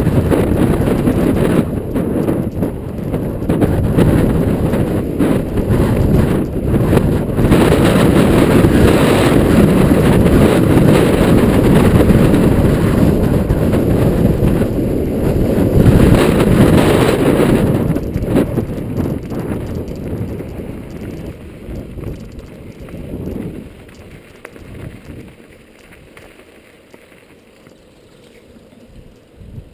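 Strong wind buffeting the microphone as a deep, gusty rumble, mixed with the ride noise of a mountain bike, dying down to a much quieter level after about twenty seconds.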